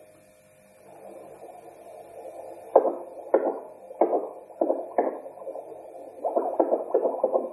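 Bistos BT250 fetal doppler's loudspeaker giving out pulsing Doppler sound from its probe: a soft hiss, then about a dozen uneven pulses from about three seconds in. The unit is sounding again with its broken probe connector cable repaired.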